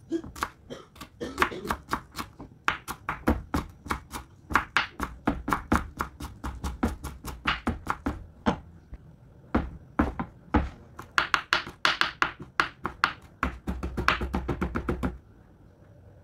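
Kitchen knife rapidly chopping fresh herbs on a wooden cutting board: quick repeated knocks of the blade on the board, about four to six a second, quickening near the end before stopping about a second before the close.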